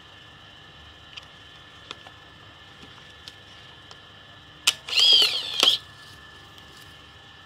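Skina weatherproof 35mm compact camera firing: a sharp shutter click, then the film-advance motor whirring for just under a second, its pitch rising and falling, ending in a click. A few faint handling clicks come before it.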